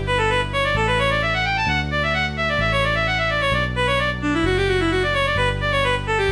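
A Panasonic KX-TG6611 phone ringtone melody played through the Beatnik Player software synthesizer. A quick melody runs up and down in waves over low held chords that change about once a second.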